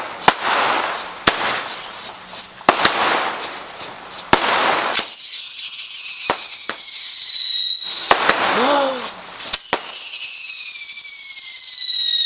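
Garden fireworks: sharp bangs and crackling for the first five seconds, then two long shrill whistles from whistling fireworks, each sliding slowly down in pitch for about three seconds, the second starting about a second and a half after the first ends.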